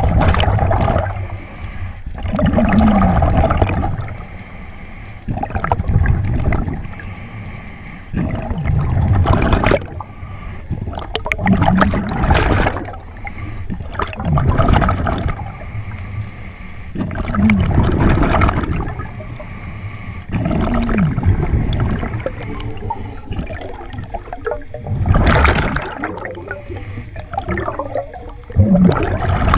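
Scuba diver breathing through a regulator underwater: a gurgling rush of exhaled bubbles about every three seconds, each with a short wavering tone from the regulator, and quieter stretches of inhaling between them.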